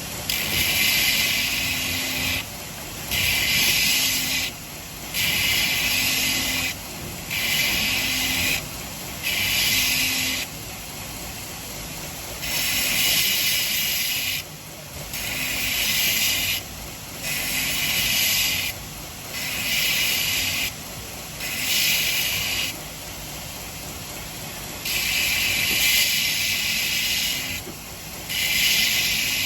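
Stainless steel cleaver blade being ground on a belt grinder's 120-grit belt: about a dozen hissing sharpening passes of one to two seconds each, with the grinder running steadily in the short gaps between them.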